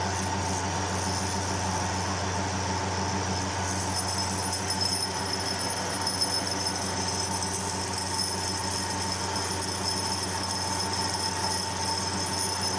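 Horizontal milling machine running with a carbide end mill taking a slow slotting cut: a steady motor hum under a thin, high-pitched whine from the cut, an annoying little noise that gets stronger about four seconds in. The end mill is not the sharpest.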